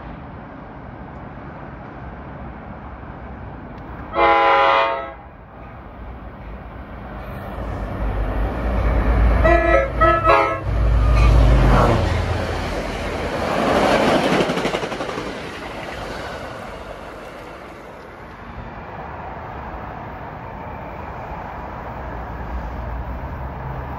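Train horn sounds one short blast, then two more short blasts about five seconds later. The train then passes at speed, its low rumble and wheel noise swelling to a peak and fading away.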